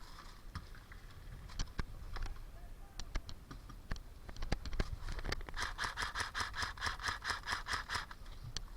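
Airsoft guns firing: scattered single sharp shots and cracks, then a rapid burst of about six shots a second lasting roughly two and a half seconds, a little past the middle.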